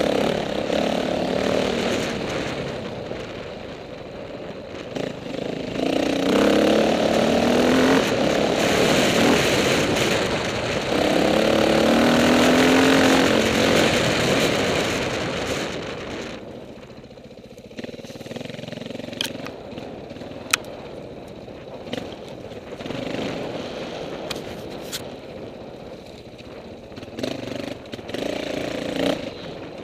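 Off-road motorcycle engine accelerating in repeated runs, its pitch rising each time and easing off in between, over a steady rush of noise. A quieter stretch follows about halfway through, broken by a few sharp clicks.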